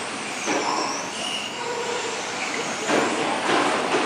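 Electric 1/10-scale rubber-tire touring cars racing: a high motor whine that glides up and down in pitch as the cars speed up and slow down, over a steady rushing noise.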